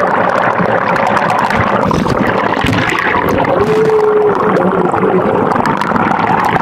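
Shower water pouring onto a phone sealed inside a condom, heard through the phone's own microphone: a loud, muffled, steady rushing.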